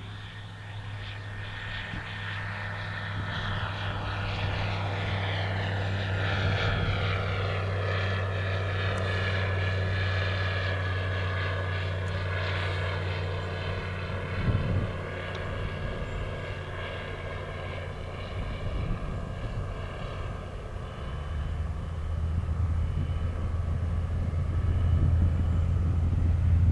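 Single-engine piston light aircraft doing a touch-and-go. The propeller engine runs at low power on final, its note falling as the plane passes. There is a short bump as it touches down about halfway through, then the engine grows louder toward the end as power comes up for the take-off roll.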